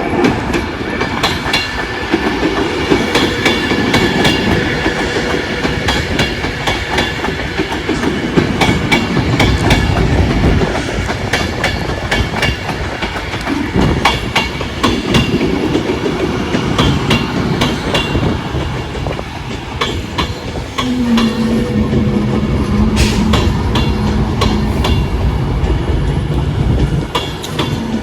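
Train running through the station, its wheels clattering over rail joints and points in a steady stream of clicks. About three-quarters of the way in a steady low drone joins, breaks off, then comes back near the end.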